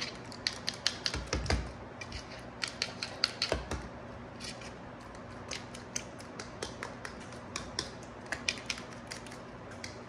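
A fork beating eggs with spinach and chopped vegetables in a glass bowl, clicking against the glass in quick, irregular taps, with a couple of dull knocks in the first few seconds.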